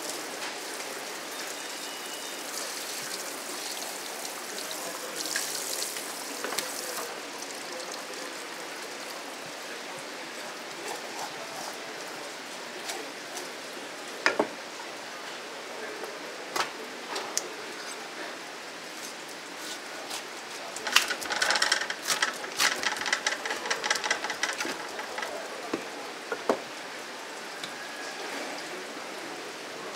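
Steady running water, with scattered knocks and a busy stretch of clattering and scraping about two-thirds of the way through, from knife and cutting-board work on a large yellowtail.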